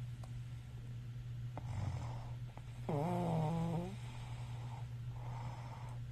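Snoring during sleep: a breath drawn in, then one pitched, buzzing snore about a second long near the middle, followed by a softer breathy exhale, over a steady low hum.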